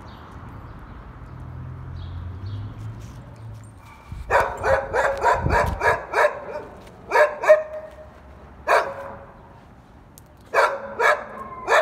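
A dog barking in sharp repeated barks: a quick run of about eight starting about four seconds in, then a pair, a single bark, and three more near the end.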